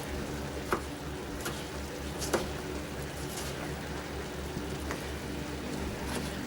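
High-carbon steel pocket knife slicing through a tomato, with two sharp knocks of the blade on the surface beneath, one under a second in and a louder one about two seconds later, plus a few faint ticks, over a steady low hum.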